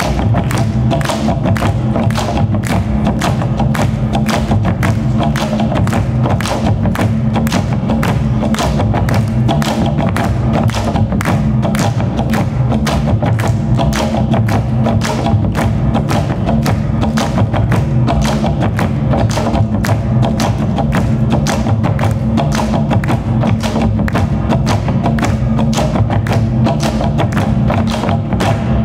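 Music with a steady, driving drum beat over a sustained low drone, cutting off abruptly at the end.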